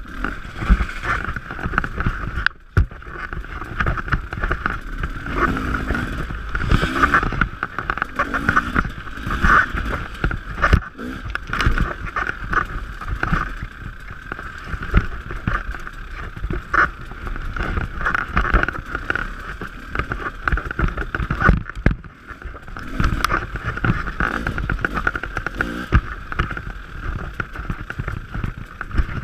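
Dirt bike engine running at varying throttle as it rides over bumpy ground, with many short knocks from the bike and trail. The engine sound drops off sharply twice: about two and a half seconds in, and again around twenty-two seconds.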